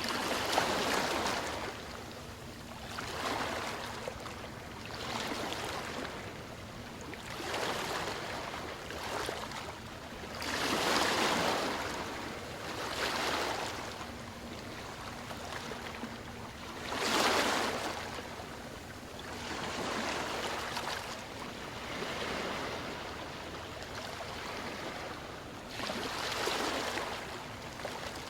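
Gentle waves breaking and washing up a sandy beach, each one swelling and fading every two to three seconds, with two bigger waves near the middle.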